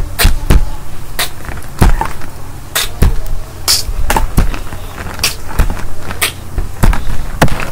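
Irregular knocks and taps close to the microphone, about two a second, from objects being handled and bumped near the recording device, over a steady low hum.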